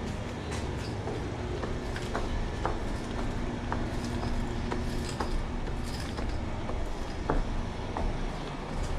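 Footsteps climbing stairs at a steady pace, about two steps a second, over a steady low rumble.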